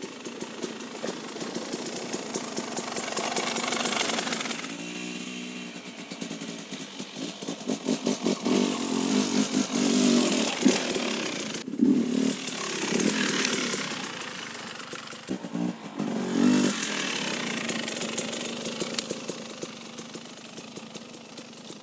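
2017 KTM EXC 300 TPI single-cylinder two-stroke enduro engine on its stock exhaust, running with the throttle opened and closed. The revs rise and fall in several surges, with a brief sharp cut about two-thirds of the way through, and it settles lower near the end.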